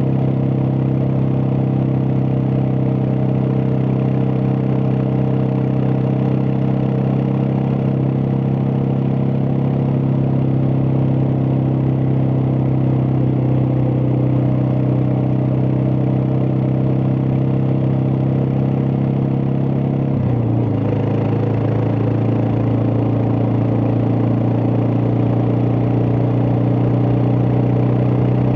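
Suzuki DR650's single-cylinder engine running steadily while riding, with a brief dip in engine pitch about twenty seconds in before it settles at a slightly lower steady pitch.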